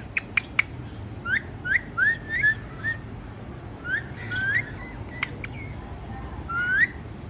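Short upward-gliding whistles, repeated in quick pairs and runs, with a few sharp clicks in the first second and another just past the middle.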